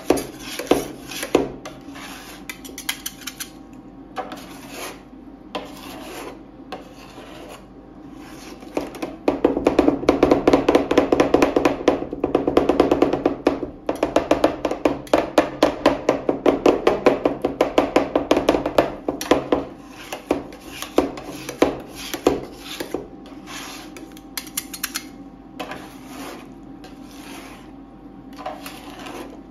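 Two metal spatulas chopping and scraping on a steel rolled-ice-cream cold plate, working chocolate brownie pieces into the freezing base. Separate clacks at first, then a fast run of rapid chopping for about ten seconds in the middle, then slower strikes again, over a steady low hum.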